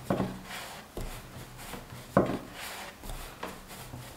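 Wooden rolling pin rolling dough out on a floured wooden board: repeated back-and-forth rolling strokes with several sharp wooden knocks, the loudest a little past two seconds in.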